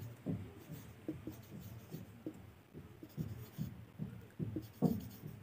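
Marker pen writing on a whiteboard: a run of short, separate strokes as a word is written out.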